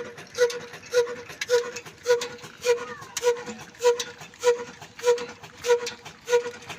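Old black desi diesel engine running steadily, with an even, slow exhaust beat of just under two pulses a second, each pulse carrying a short hollow tone.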